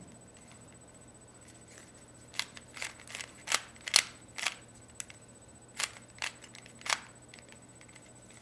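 Rubik's Cube layers being turned by hand: a quick run of about a dozen sharp plastic clicks and clacks, starting about two seconds in and stopping about a second before the end.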